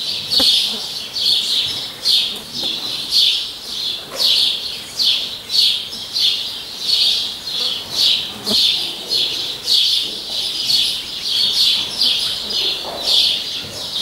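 A bird chirping over and over in a steady rhythm, about two short high chirps a second.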